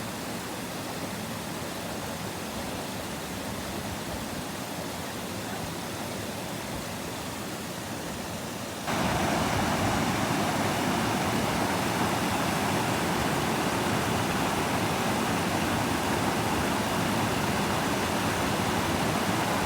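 Niagara Falls: the steady rushing of a huge mass of falling water, becoming suddenly louder about nine seconds in.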